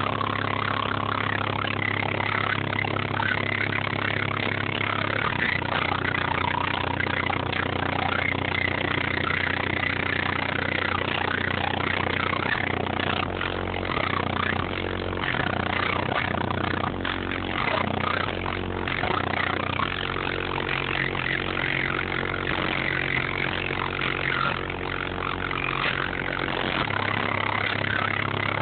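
Brand-new Fi BTL N2 15-inch subwoofer in a ported box playing bass-heavy music very loud inside the car, overloading the phone's microphone into a distorted, buzzing wall of sound. The held bass notes shift every several seconds.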